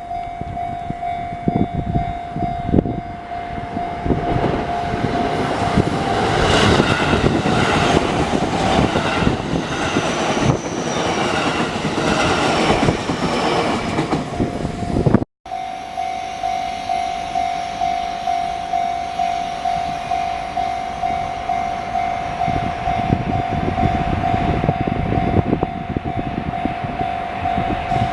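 Railway level crossing warning bell ringing steadily, about two dings a second. Through the first half a train runs over the crossing with a clickety-clack of wheels over rail joints, loudest about halfway. After a brief cut the bell keeps ringing.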